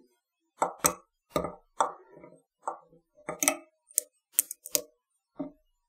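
Yellow Dyneema fly-tying thread being wound and pulled tight over a foam strip on a hook in the vise, securing the foam. It makes about a dozen short, irregular ticks and snaps, the sharpest ones between about three and five seconds in.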